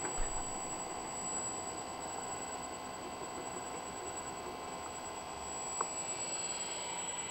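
Open desktop computer running: steady whirr of its cooling fans with a steady electrical hum and thin whines. Two light clicks, one just after the start and one near six seconds in.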